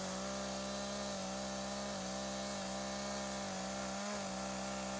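Chainsaw running at a steady high speed, ripping lengthwise through a spruce log in a guide-track chainsaw mill. The pitch holds even, with a few brief small dips under load.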